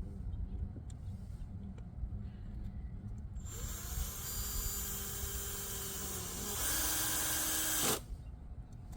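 Power drill driving a 3-inch screw through the mailbox base into the post. The motor spins up about three and a half seconds in, runs steadily, gets louder for the last second or so, then stops suddenly.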